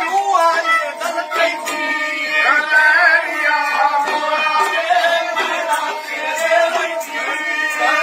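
Live Punjabi folk music: a bowed sarangi and an algoza (paired wooden folk flute) playing a melody, with a man singing and beats on a small hand drum.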